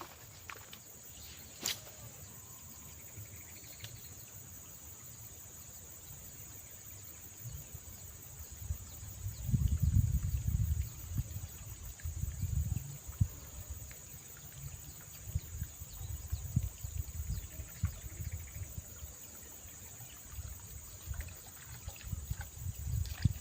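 Insects chirring in a steady high-pitched drone. Loud low thumps and rumbles break in from about eight seconds in to about fourteen seconds, and again near the end.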